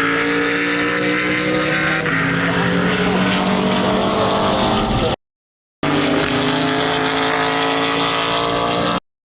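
Racing car engine running hard at high revs, its pitch slowly climbing as it accelerates. The sound cuts out to silence twice for about half a second.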